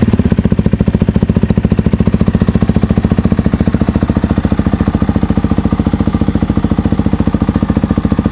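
Suzuki DR-Z400E's single-cylinder four-stroke engine idling steadily through a LeoVince aftermarket exhaust, an even beat of about a dozen exhaust pulses a second.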